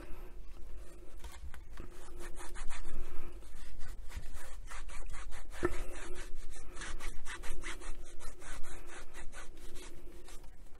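Cloth rubbing over the textured black covering of a Roberts RIC1 radio's case in quick, repeated wiping strokes, cleaning grime off its ends.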